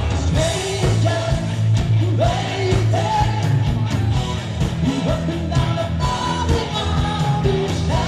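Rock song with a singer over a steady drum beat and bass.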